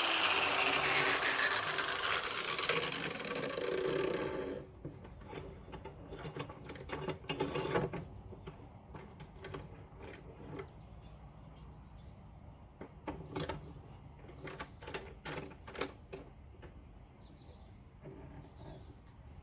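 Angle grinder grinding a steel lawn mower blade in a sharpening jig, cutting off abruptly about four and a half seconds in. After that come scattered light clicks and knocks of metal parts being handled.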